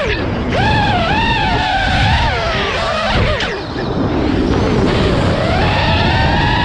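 Nazgul5 five-inch FPV quadcopter's brushless motors whining, the pitch falling sharply at the start, then rising and dipping with the throttle, with a quieter dip about halfway through and a steadier high whine near the end. A steady rush of wind sits underneath.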